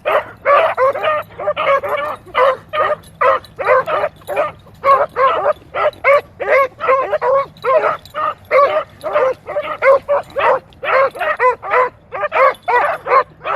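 Beagles baying on a rabbit track: short, high yelping calls repeated rapidly, about two to three a second, without a break.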